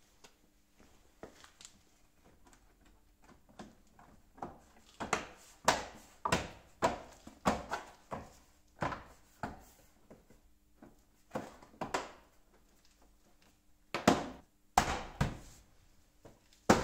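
A hand tapping and knocking on the plastic rear bumper of a BMW E46 beside its parking sensors. The knocks come in an irregular series, about two a second from roughly four to ten seconds in, then in a few scattered pairs near the end.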